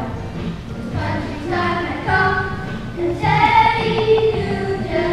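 A group of children singing together in phrases.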